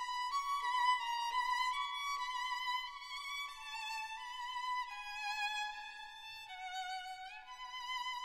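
Background music: a violin playing a melody of held notes with vibrato, moving from note to note every half second or so.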